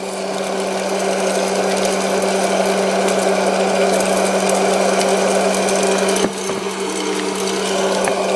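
Hot-air popcorn machine running: a steady motor hum under a constant rush of blown air.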